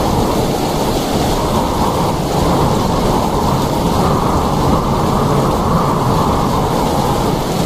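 Heavy rain falling, a steady dense hiss with a deep low rumble underneath that holds even throughout.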